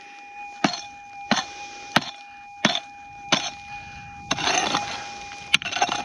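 Prospecting pick chopping into hard ground to knock out a lump over a deep gold target: five sharp strikes at an even pace, then a scraping rush of loosened dirt and one more strike near the end.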